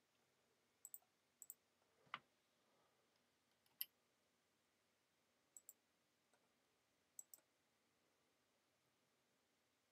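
Near silence broken by faint, sharp clicks of a computer mouse button, most of them in quick pairs, with a duller knock about two seconds in.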